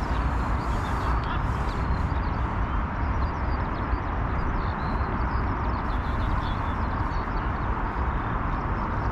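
Wind rumbling on the microphone over a steady outdoor hiss, with birds calling faintly throughout.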